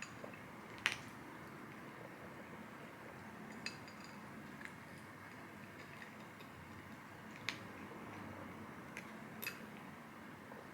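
About six light, sharp taps and clicks, scattered irregularly over a steady faint room hiss.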